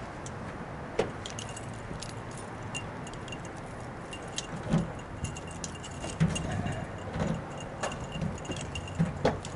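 Handling noise with jangling, clinks and a few soft thumps, like keys and shopping bags being moved about. A faint high beep repeats rapidly underneath.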